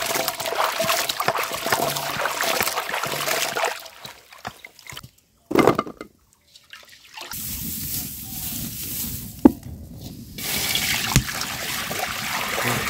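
Hands swishing cut moringa (drumstick) pods in a pot of water, splashing and sloshing, for about the first four seconds. From about ten seconds in, water pours in a steady rush into a metal karai.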